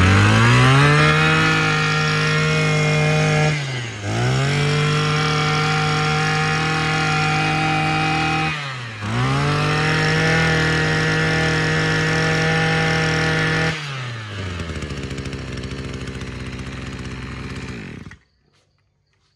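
Maruyama 26cc two-stroke brush cutter engine held at high revs three times, the pitch dipping and climbing back between each. It then drops to idle and cuts off near the end.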